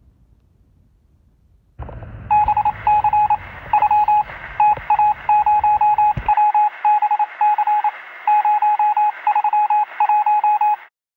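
Electronic beeping: one tone keyed on and off in rapid, uneven groups, like Morse code, over a steady hiss. It starts about two seconds in and cuts off suddenly near the end, with a low rumble underneath that stops abruptly about six seconds in.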